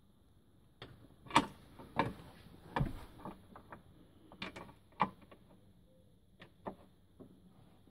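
Metallic clicks and clunks from the swivel base under a Ford Transit double passenger seat as its fittings are worked by hand. These are a string of irregular knocks, the loudest about a second and a half in and again about five seconds in.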